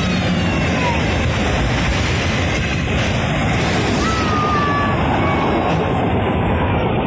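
Freight train of autorack cars rolling past close by: a loud, steady rumble and rattle of steel wheels on the rails, with a few thin high squeals that slide down in pitch, the wheels squealing against the rail.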